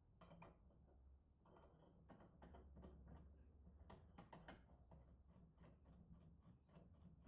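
Faint, rapid clicking and light tapping of small lathe parts being handled and fitted back on, over a low hum. The clicks are irregular at first, then come about three to four a second.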